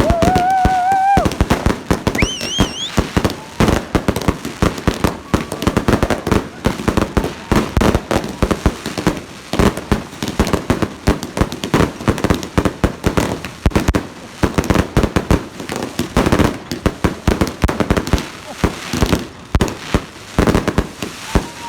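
Fireworks going off in rapid succession: a dense, continuous barrage of bangs and crackles. Two whistling fireworks sound in the first three seconds, the second higher and wavering.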